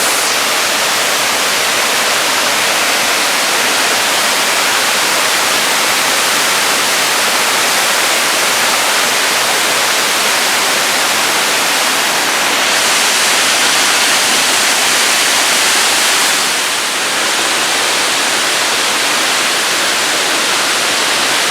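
Loud, steady rush of a large waterfall in heavy flow, with no pitched sound in it. It turns a little brighter and hissier about halfway through, and dips briefly in level a few seconds before the end.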